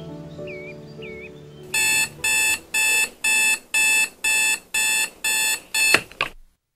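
Digital bedside alarm clock beeping, about two beeps a second, until a hand slaps it about six seconds in and the beeping stops. Soft music plays before the beeping starts.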